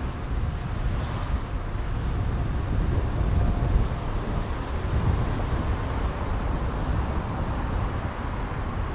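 Steady low rumble of a car's engine and tyres heard from inside the cabin while driving slowly along a street.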